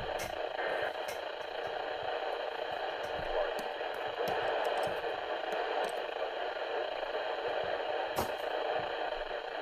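Weather radio receiver's static: a steady band-limited hiss with scattered brief crackling clicks, and no voice or alert tone.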